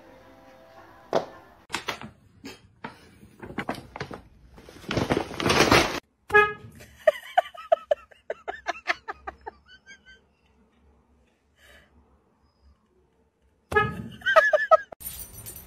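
Car horn honking from inside the car, in a quick string of short beeps and then another burst near the end, at a cat on the hood. Before it come a few sharp knocks and a loud burst of rushing noise.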